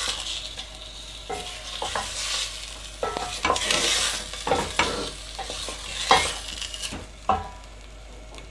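Bone-in chicken pieces and garlic frying in a little oil in a stainless steel pot, with a steady sizzle, as the meat is browned before water goes in. A wooden spoon stirs the pieces and knocks against the pot several times, loudest about six seconds in.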